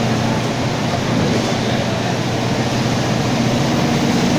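Mercedes-Benz OF-1722M city bus running under way, its differential growling over the steady road and engine noise. A low droning tone comes up stronger about three seconds in.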